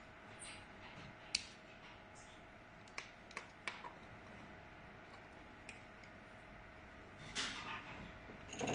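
Scattered light clicks and small handling noises over a faint steady hum, with a short rustle about seven and a half seconds in.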